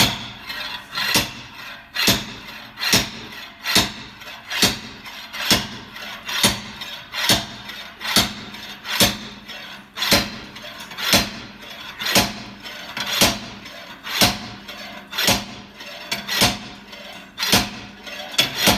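Slide hammer bolted to a car's rear wheel hub, its steel weight slammed against the end stop again and again: sharp metal clanks at a steady rhythm of about one a second, some twenty strikes. The hub does not come free because it is rust-seized on the axle.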